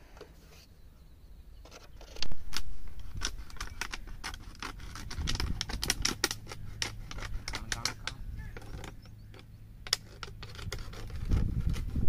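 Scissors snipping through a thin plastic water bottle, with irregular clicks and crinkles of the plastic as it is cut and handled. A louder bump comes about two seconds in.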